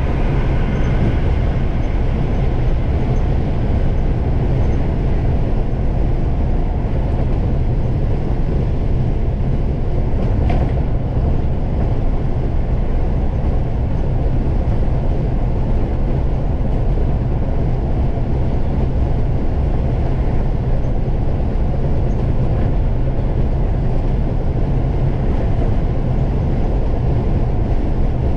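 Cabin noise of a Scania Fencer F1 coach on the move: a steady low rumble of engine and tyres on the road, holding level without any gear changes or revving.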